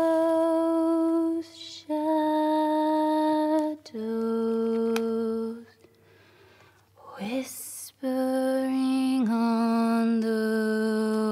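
Background music: a slow, wordless melody hummed by a woman's voice in long held notes, stepping down in pitch from phrase to phrase, with short pauses between phrases and a longer quiet gap midway.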